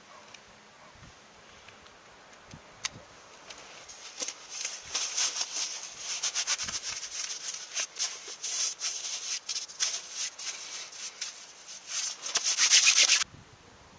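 Close-up rustling and scratchy rubbing of gloves being pulled on and worked over the hands, in a quick irregular run of rubs. It grows loudest near the end, then cuts off suddenly.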